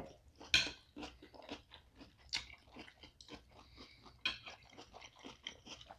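Close-up chewing of hibachi shrimp, scallops and vegetables: irregular soft crunches and small mouth clicks at an uneven pace.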